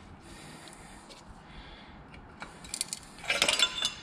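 A screwdriver prying at the riveted baffle end plate of a motorcycle silencer: faint scraping, then a quick run of metallic clinks and rattles a little after three seconds in as the plate comes free of the silencer end.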